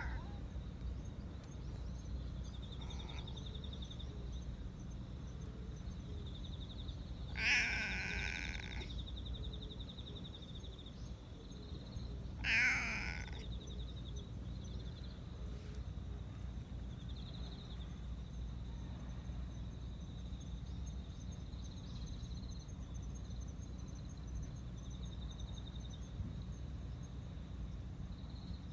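A cat meowing twice, each call about a second long, several seconds apart.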